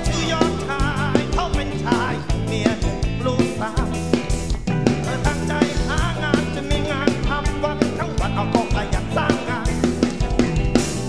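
Live rock band playing through a stage PA: drum kit and bass keeping a steady beat under electric guitar, with a wavering, bending lead melody on top.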